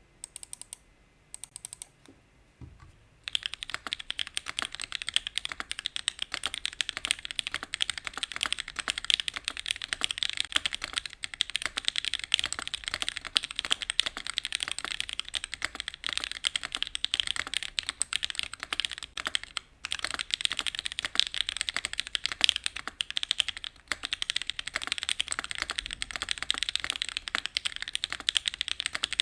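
Fast typing on a custom UTD 356mini mechanical keyboard with an aluminium case, gummy O-ring mount and aluminium plate, fitted with lubed and filmed Gateron Blizzard linear switches and DCS keycaps. A few separate keystrokes come first, then steady rapid typing from about three seconds in.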